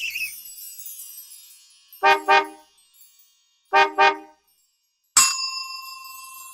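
A car horn honks twice in quick succession, then again a second and a half later (beep-beep, beep-beep), after the tail of fading music. About five seconds in, a single bright chime strikes and rings on.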